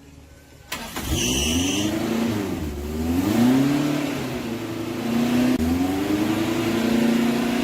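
The restored old truck engine starts running about a second in and is revved up and down several times. A brief high-pitched tone sounds just after it comes in.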